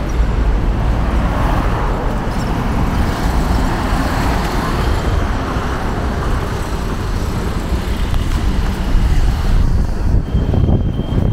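City street traffic: cars going by, a steady wash of engine and tyre noise that swells for a few seconds as vehicles pass close.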